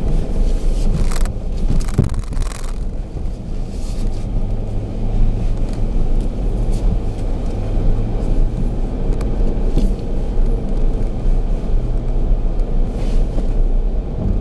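Jeep Grand Cherokee driving slowly up a dirt and gravel trail, heard from inside the cabin: a steady low rumble of engine and tyres, with a few brief knocks or crunches, the strongest one to three seconds in.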